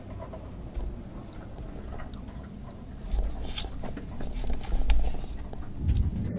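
Muffled handling noise from a camera held up close: uneven low rumbling bumps with soft rustles and scattered faint clicks.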